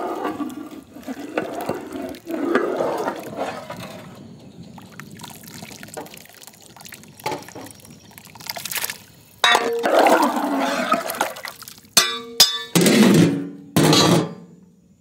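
Thick curry sloshing as it is stirred and scooped with a long ladle in a large cooking pot, then a metal lid clanging and ringing a few times as it is set on the pot near the end.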